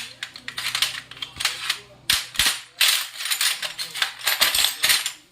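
Irregular run of sharp metallic clicks and clanks, a dozen or more in quick succession, with a few longer rattling bursts in the middle.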